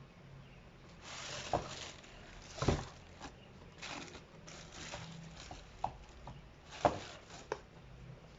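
Sneakers and their packaging being handled: soft rustling broken by several sharp knocks and taps, the loudest a little under three seconds in and just before seven seconds in.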